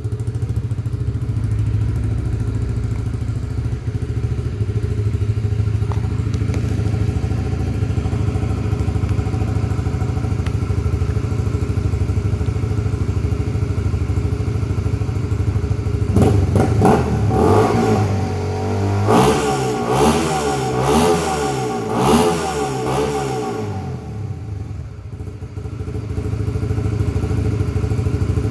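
Honda RS150R's single-cylinder engine idling steadily through an aftermarket GL 'cutting standard' exhaust, blipped several times in quick revs for about seven seconds past the middle, then settling back to idle.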